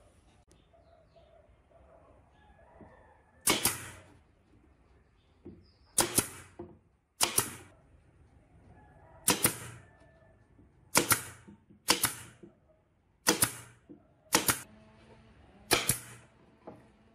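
A series of about nine sharp, loud snapping impacts at irregular intervals, each dying away quickly, typical of a hand tool being struck or fired during the work.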